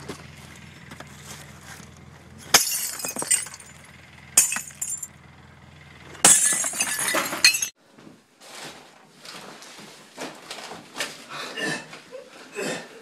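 Glass smashing on a pile of junk: three crashes about two seconds apart, the last shattering on for over a second. Then quieter irregular knocks and rustling.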